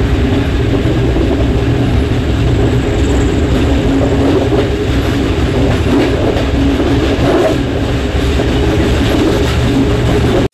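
Moving train heard from its rear observation saloon: a loud, steady rumble of wheels on the rails and running gear, with a low drone underneath.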